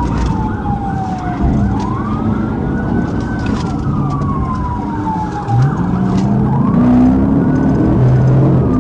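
Police car siren on a slow wail, its pitch gliding up and down every few seconds, over engine and road noise from a patrol car at pursuit speed. About halfway through the engine note climbs as the car accelerates hard, then holds.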